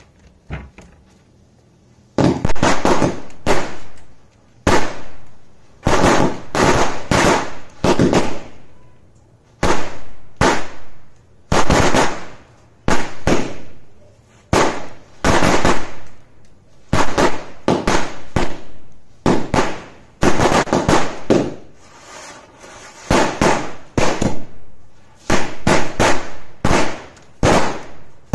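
A Sunshine-brand 100-shot firecracker string (100 wala ladi) going off: rapid runs of sharp bangs in dense clusters about a second long, separated by short gaps, starting about two seconds in.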